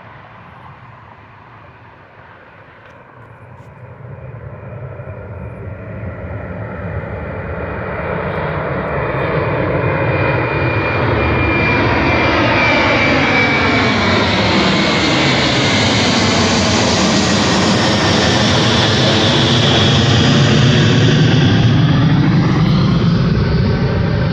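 Airbus A330-300 twin-jet's Pratt & Whitney PW4000 turbofans at takeoff thrust, growing louder over the first ten seconds or so as the airliner approaches, with a high whine, then a sweeping drop in pitch as it passes close by.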